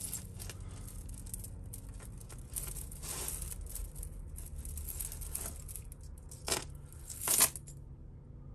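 Costume jewellery and its packaging being handled and sorted by hand: small scattered clinks and rustles, a longer rustle about three seconds in, and two sharper, louder noises near the end, the second the loudest.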